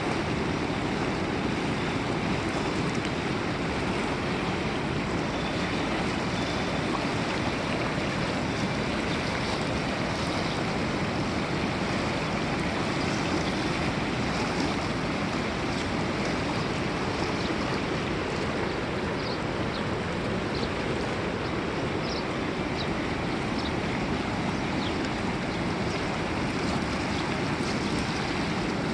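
River water flowing in a steady rush, with a few brief higher splashes past the middle.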